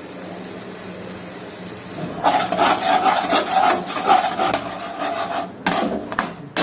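A spatula scraping and stirring thick tomato-ketchup pizza sauce around a kadai in quick repeated strokes, starting about two seconds in, with a couple of sharp taps near the end.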